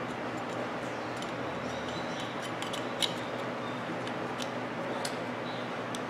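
Light plastic clicks and taps as a microwave oven's high-voltage capacitor is handled, over a steady background hiss; one sharper click about three seconds in.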